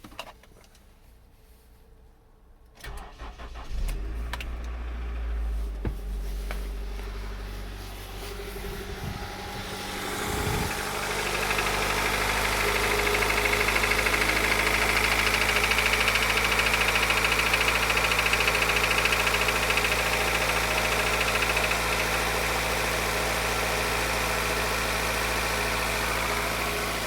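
Honda CR-V RD1's B20Z1 2.0-litre four-cylinder engine cranked and started about three seconds in, then idling steadily and getting louder about ten seconds in. The idle carries the knock that is the fault being shown.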